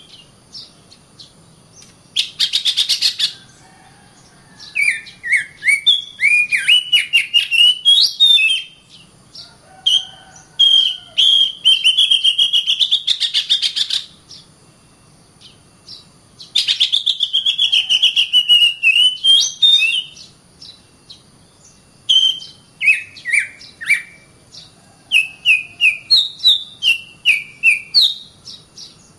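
Oriental magpie-robin (kacer) singing in bursts of quick, varied whistled phrases mixed with harsh, scratchy notes, with pauses of a second or two between phrases.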